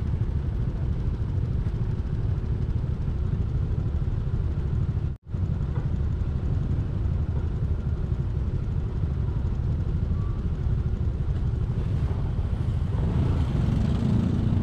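Steady low rumble of a vehicle on the move, engine and road noise together. It cuts out for an instant about five seconds in, and grows a little fuller near the end.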